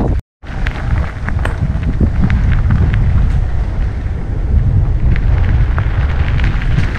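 Riding noise from an e-mountain bike on a dirt and gravel trail: wind buffeting the camera microphone over the rumble of knobby tyres, with scattered clicks and rattles from the bike. The sound cuts out completely for a moment about a quarter second in.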